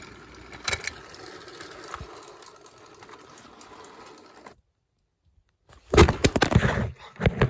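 Handling noise: a knock, then a faint hiss that cuts off abruptly about four and a half seconds in, followed after a gap of silence by a cluster of loud knocks and clatter near the end.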